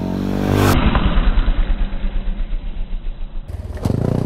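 Yamaha WR250R's single-cylinder engine on an off-road ride: revving up at first, then uneven low chugging pulses, then a short sharp rev rising near the end. The sound changes abruptly twice, as if spliced from separate clips.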